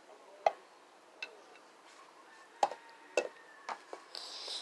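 Hard plastic toy animal figures clicking and tapping against a ceramic bowl and a wooden railing: about half a dozen sharp, irregularly spaced taps, the loudest about half a second in.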